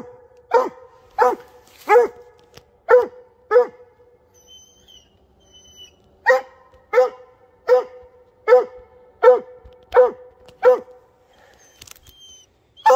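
Mountain cur dog barking treed at the foot of a tree with a raccoon up it: a steady chop of single barks, about one and a half a second, broken by a pause of a couple of seconds in the middle.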